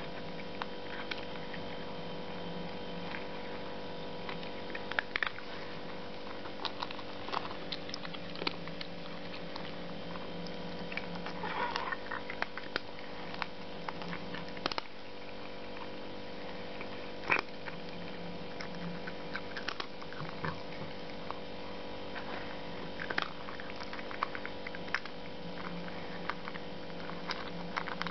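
Steady electrical-sounding hum with scattered light clicks and ticks.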